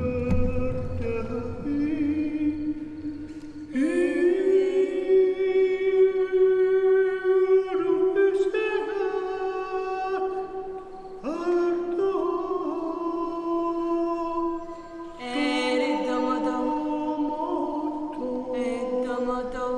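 A voice chanting long held notes, each held for a few seconds, some sliding up into pitch, with the pitch stepping from note to note. A low rumble dies away in the first second.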